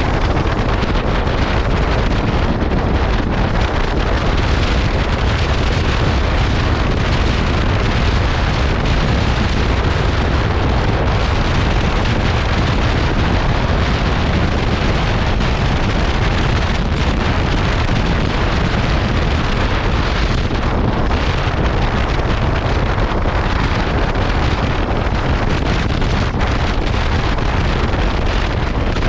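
Loud, steady wind rushing over the microphone of a KTM 390 Adventure motorcycle riding at speed, covering most other sound.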